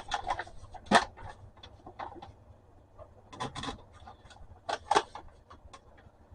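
Antique manual typewriter being handled: scattered sharp clicks and short scraping rubs of its metal parts, the loudest click about a second in and short clusters of scrapes later on.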